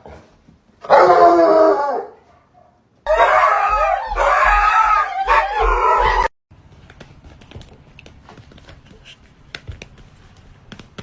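A dog howling in long, wavering cries: once about a second in, then again for about three seconds from the three-second mark, followed by quiet with faint clicks.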